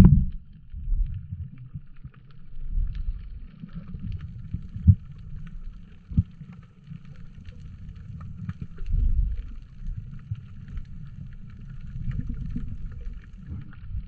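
Muffled underwater sound picked up by an action camera's waterproof housing: a low, uneven rumble of water moving around the camera as a snorkeler swims, with a few dull thumps and a faint crackling higher up.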